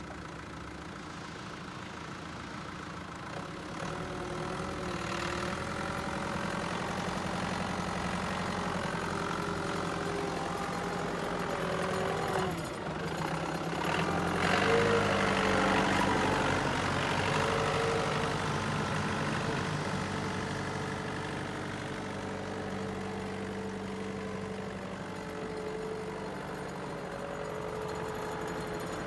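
Stocka 3060 forklift's engine running as it drives about, changing pitch as engine speed varies. It grows louder as the forklift comes close about halfway through, then eases off as it moves away.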